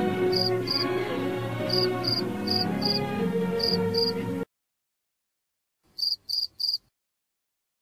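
Cricket chirping, short high chirps in twos, over film music that cuts off abruptly about four and a half seconds in. After a moment of silence, three more chirps come near the end.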